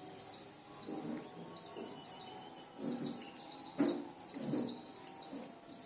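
Small birds chirping: many short, falling, high chirps several times a second. A few faint low, smeared sounds lie under them.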